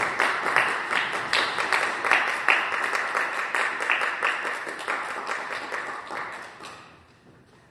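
Audience applauding, a dense patter of many hands clapping that fades away and dies out near the end.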